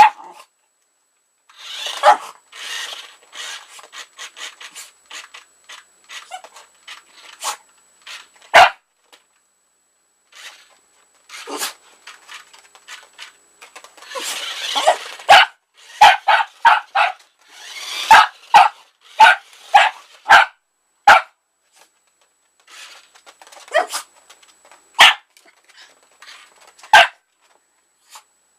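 Yorkshire terrier barking in short, sharp yaps at irregular intervals, with a quick run of barks about two a second in the middle.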